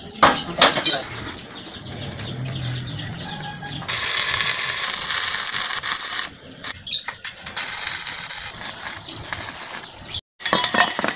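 Electric arc welding on a steel box-section frame: a steady crackling hiss begins about four seconds in, then breaks off and starts again in short runs. A few metal clicks come before it, and a metal clatter near the end.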